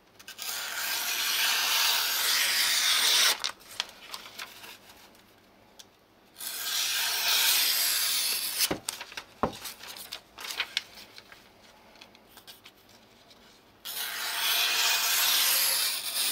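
A freshly sharpened deba knife slicing through a sheet of paper in three long strokes from heel to tip, each a steady rasping hiss lasting two to three seconds. The edge runs through without catching, the sign of a keen edge after restoration.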